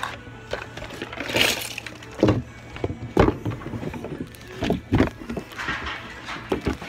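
Irregular knocks and rubbing of a handheld phone being jostled and moved, over a steady low hum of store background noise.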